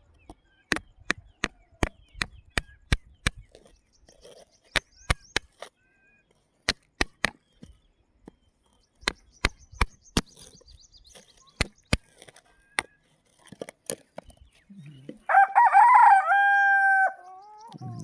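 A metal digging rod clicks and knocks sharply against pebbles and gravel in quick runs, about two to three strikes a second with short pauses, as it prises a stone out. About fifteen seconds in, a rooster crows loudly, a two-second call that falls away at the end.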